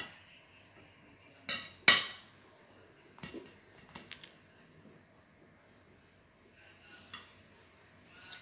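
Table knife sawing through a crunchy, over-baked frozen pizza crust and clinking against the plate: two sharp, loud clinks about a second and a half in, then lighter taps and scrapes.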